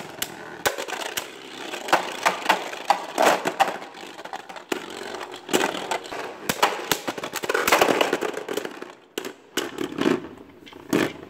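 Beyblade Burst tops spinning in a plastic stadium: a steady scraping whir of their tips on the floor, broken by many sharp plastic clacks as they strike each other and the wall.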